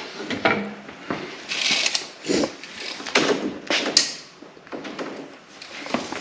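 Handling noises from sheet stock and tools being moved: a few short scrapes and rustles, with a sharp knock about four seconds in.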